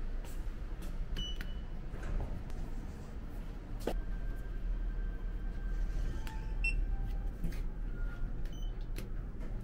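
Indoor background hum with scattered clicks and a few short, high electronic beeps.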